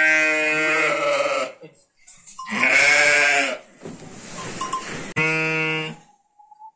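Sönmez sheep bleating: three long, drawn-out bleats a couple of seconds apart, with soft rustling between the second and third.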